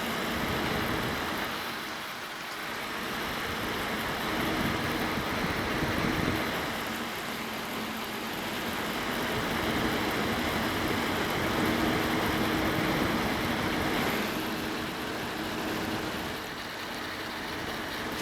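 Desktop computer with an Asus P5K motherboard and Xeon X5450 running under load: a steady fan rush with faint steady whine tones on top, the motherboard's power chokes whining (coil whine). The level swells and fades slowly by a few decibels.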